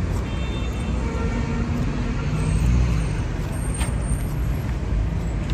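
Street traffic: a steady low rumble of vehicle engines and road noise, with one faint tap about four seconds in.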